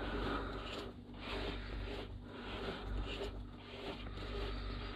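Soft scraping and rustling of a Tru Design composite skin fitting being turned by hand on its sealant-coated threads.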